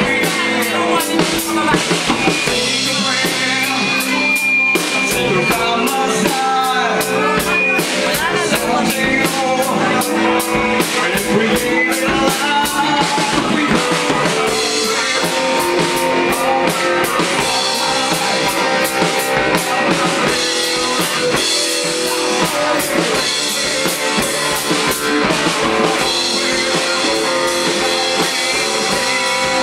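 Rock band playing live: drum kit with cymbals hit steadily throughout, bass guitar and guitar, and a singer's voice at times.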